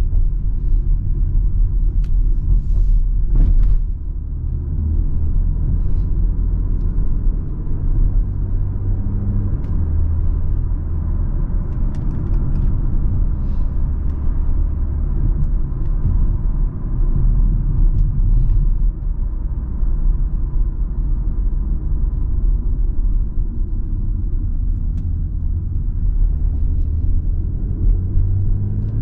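A BMW X3 M40i's 3.0-litre turbocharged straight-six running at a steady, moderate pace, a low rumble mixed with tyre and road noise. A few sharp knocks sound around three to four seconds in.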